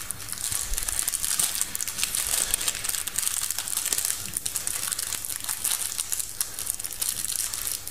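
Crinkling and rustling of the plastic packaging on a roll of filo pastry as fingers pick and pull at it to get it open: a steady crackle of many small ticks.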